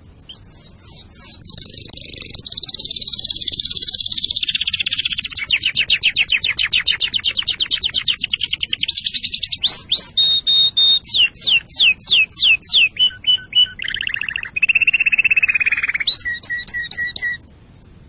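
Domestic canary song: a long run of varied phrases, with quick falling notes, a buzzy trill, a very fast roll, a string of falling sweeps, then lower held notes, and a short closing phrase. The song cuts off suddenly near the end.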